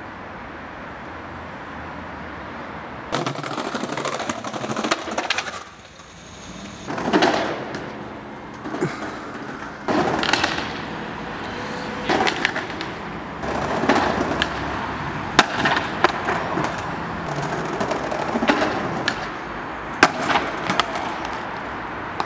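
Skateboard wheels rolling on concrete and brick, starting a few seconds in and swelling and fading over several runs along a ledge. The run is broken by sharp clacks of the board popping and landing, three or four times.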